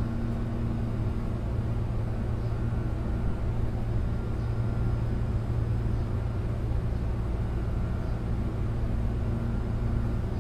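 Meitetsu 6800 series electric train running, heard from inside the car: a steady low hum and the noise of wheels on rail. A faint low tone fades out about two seconds in.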